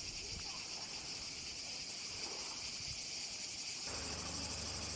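Steady, high-pitched chorus of cicadas in the pines, with a faint low rumble joining about four seconds in.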